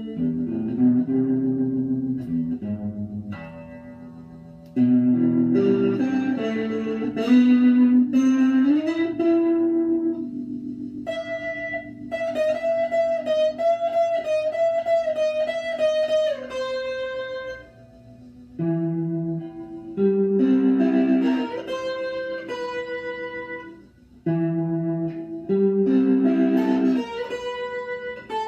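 Solo electric guitar playing chords and single-note phrases, with one long held note with vibrato about halfway through and brief pauses between phrases.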